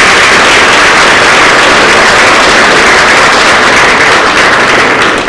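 Audience applauding steadily at the close of a lecture.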